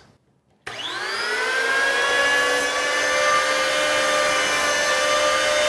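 Electric power planer switched on: about 0.7 s in its whine starts and rises as the cutter head spins up, then it runs at a steady speed.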